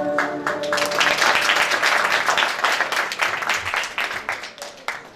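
Audience applauding as the final held note of a sung song ends; the clapping is dense for a few seconds, then thins to scattered claps and dies away near the end.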